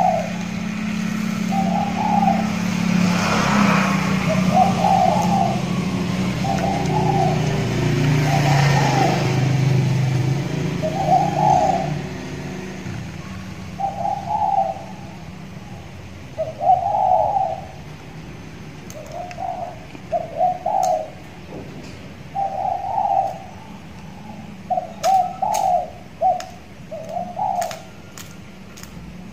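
Spotted dove (tekukur) cooing its short song phrase over and over, a phrase every two seconds or so. It is a six-month-old trained bird just coming into full, regular song. A low rumble runs under the first twelve seconds or so.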